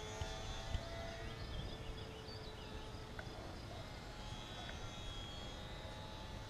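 Faint outdoor background: a low rumble of wind on the microphone, a thin steady whine from the small RC plane's electric motor far overhead that fades over the first few seconds, and a few faint chirps.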